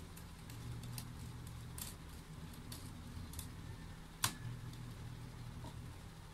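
Small clicks and ticks of a precision screwdriver turning screws into a laptop's bottom panel, with one sharper click about four seconds in, over a steady low hum.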